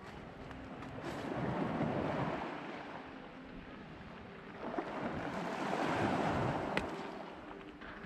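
Small waves washing onto a pebble beach, the surf swelling and fading twice, with a few sharp clicks of stones.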